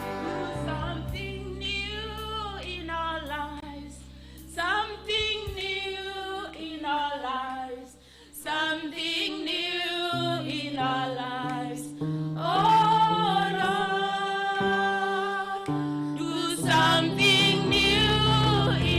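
Gospel worship song: a woman's voice singing a slow melody, with other voices joining, over sustained keyboard chords.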